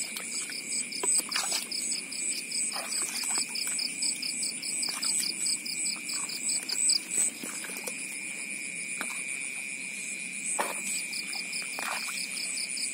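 Night chorus of insects and frogs over a flooded rice paddy: a steady high trill with even, pulsing chirps about four a second, broken by a few short, scattered knocks and splashes.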